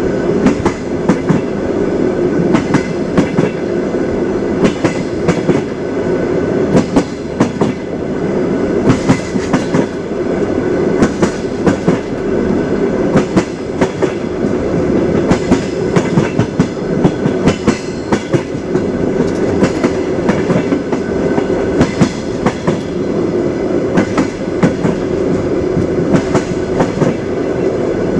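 Train wheels clicking over rail joints in repeated groups, over the steady rumble of a moving railway carriage.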